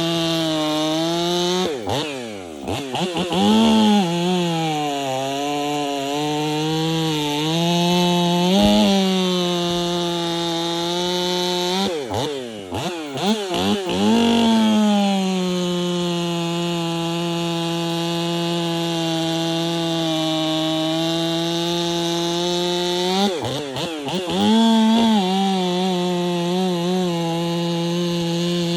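Ported Husqvarna 500i chainsaw, a two-stroke, running at high revs with a steady note. Three times, about 2, 12 and 23 seconds in, the pitch wavers and drops, then sweeps back up to full speed.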